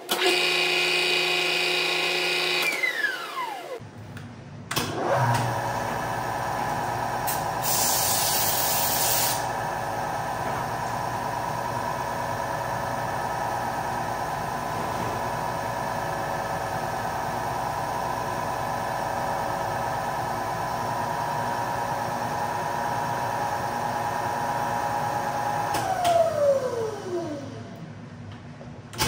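An electric drill motor runs at a steady speed, winds down with a falling pitch, starts up again and runs steadily for about twenty seconds, then winds down again near the end. There is a brief high hiss about eight seconds in.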